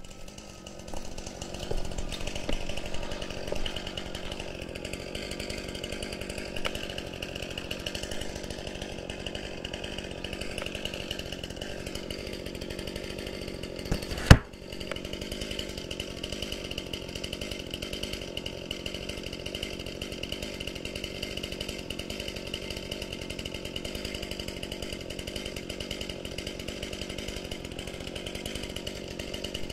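Two-stroke chainsaw engine running steadily, with one sharp knock about fourteen seconds in.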